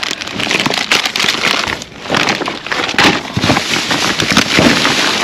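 Plastic bags and wrapped packages crinkling and rustling as gloved hands rummage through them, a steady run of quick crackles.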